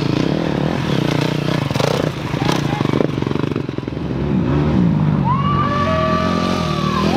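Dirt bike engines running and revving. About five seconds in, one revs up and holds a high, steady pitch.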